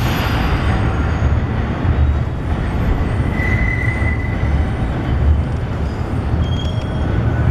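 New York City Subway train running away around curved elevated track, heard as a steady low rumble, with a brief high wheel squeal about three and a half seconds in.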